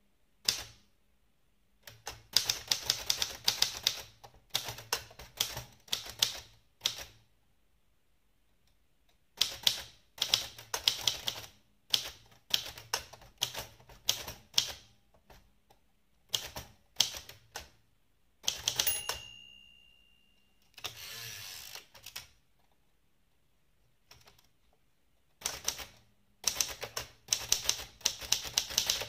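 Typing on an Adler abc 5000 typewriter: quick runs of sharp key strikes broken by short pauses. About two-thirds of the way through, a single ringing tone sounds, the margin bell, and is followed by a longer sliding sweep as the carriage is returned before typing resumes.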